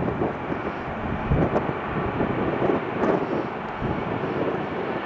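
Jet engines of a Boeing 737 airliner at takeoff power, a steady rushing roar as the plane accelerates down the runway and rotates for lift-off.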